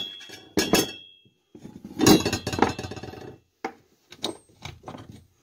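Hammer blows on a steel punch driving out a BMX bottom bracket bearing, two quick metallic strikes with a ringing tail. Then a longer metal clatter as the bearing and spacer come loose, and several light metal clinks as the parts are handled.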